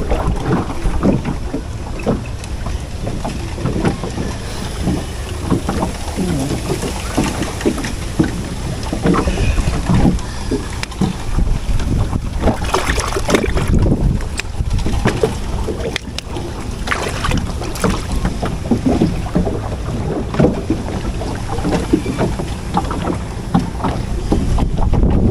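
Wind buffeting the microphone as a steady low rumble, with irregular rustling, crackling and knocks as hands push through and pull at water hyacinth leaves beside a small wooden boat.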